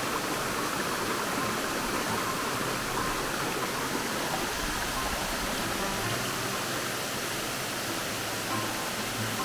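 Waterfall in heavy flow after rain: a steady, even rush of falling water.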